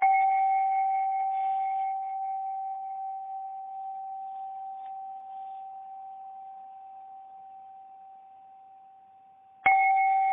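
A struck bell tone rings out and slowly dies away over about nine seconds. It is struck again near the end, loud once more.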